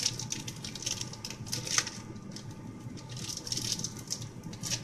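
Plastic wrapper crinkling and crackling as it is peeled off a tube of refrigerated peanut butter cookie dough, with one sharper crack about two seconds in.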